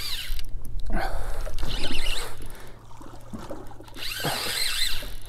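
Spinning reel working against a hooked fish on light line, with a steady low rumble of wind on the microphone.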